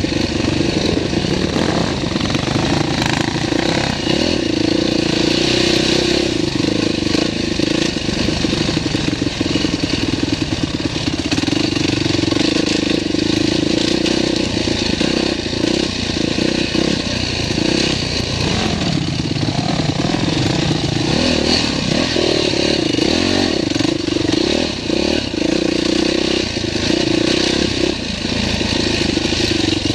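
Dirt bike engine running on a rough trail, heard up close from the rider's own bike, its revs rising and falling over and over with throttle changes.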